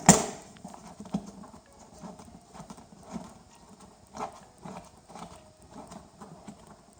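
A loud sharp snap as the plastic side panel of an inverter generator is put back in place. Scattered light clicks and knocks of handling the plastic housing follow.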